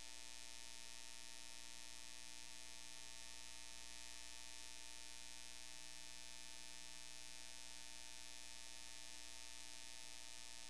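Steady electrical hum with a high hiss, unchanging throughout; no other sound stands out.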